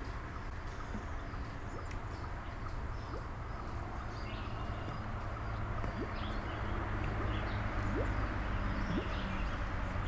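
Scattered faint bird chirps over a steady low hum.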